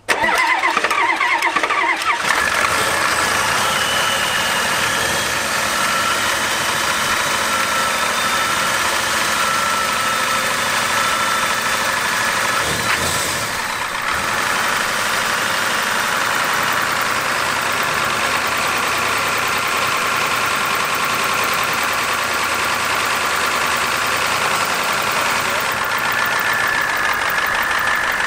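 A 1994 Ford's 7.3-litre IDI turbo diesel V8 cranks for about two seconds and catches, its fuel system just bled of air. It then runs steadily on its own.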